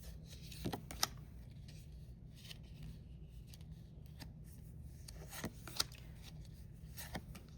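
Pokémon trading cards and a foil booster pack being handled, with a few sharp crinkles and clicks about a second in and again near the end, over a low steady hum.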